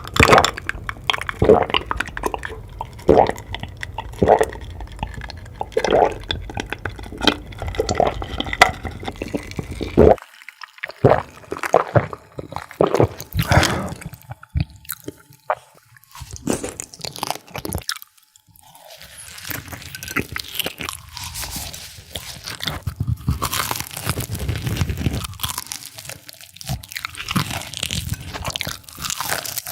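Close-miked eating: crunchy chewing and biting, with about one chewing stroke a second at first. The sound changes abruptly about ten seconds in and again near eighteen seconds, as different people eat different foods, ending in denser, crisper crunching.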